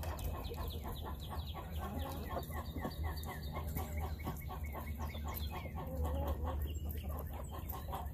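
Chickens clucking, many short clucks overlapping, over a steady low rumble.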